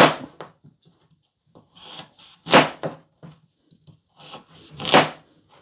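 Kitchen knife roll-cutting a raw carrot on a plastic cutting board: a few separate cuts, spaced a second or two apart. Each cut ends in a sharp knock as the blade reaches the board, and the strongest two come about two and a half and five seconds in.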